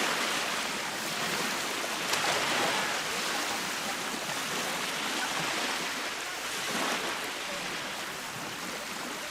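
Baltic Sea surf: small waves breaking and washing up the shore in a steady hiss, swelling as a wave breaks about two seconds in and again near seven seconds.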